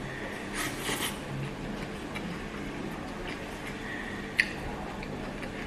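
Close-up chewing and mouth sounds of someone eating, with a single sharp click about four seconds in, over a low steady hum.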